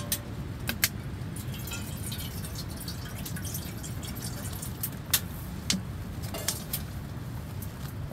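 Water poured from a plastic bottle into a small metal pan, with a few sharp clinks and knocks as the pan is handled, over a steady low rumble.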